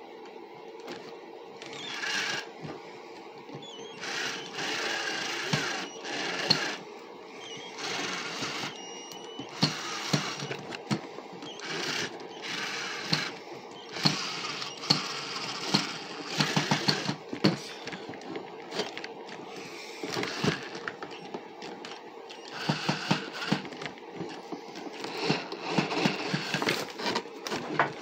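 Cordless drill running in short, repeated bursts of a second or so, with clicks and rattles between them.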